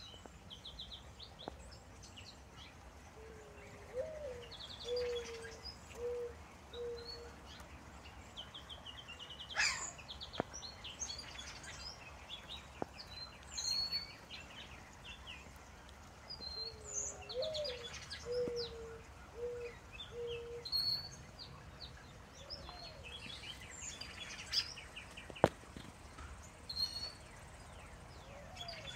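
Mixed wild birdsong: many high chirps and trills, and twice a low phrase of about five notes, the first rising and the rest held level. A few sharp taps, the loudest near the end.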